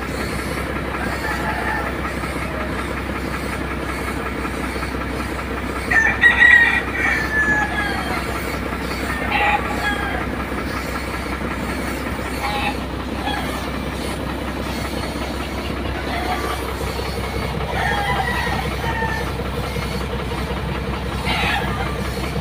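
Air compressor running with a steady drone, feeding a gravity-feed paint spray gun that is spraying a truck body. A rooster crows several times over it, loudest about six seconds in.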